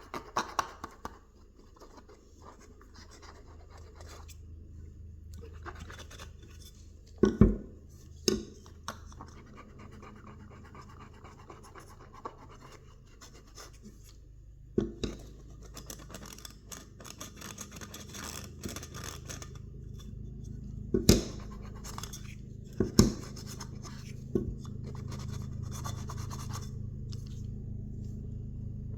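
Cotton bud rubbing and scratching around the rim of a 6-inch McIntosh speaker, scrubbing off the residue of the old foam surround with alcohol. It comes in stretches, with several sharp knocks as the speaker frame is handled. A steady low hum sits underneath and grows louder in the second half.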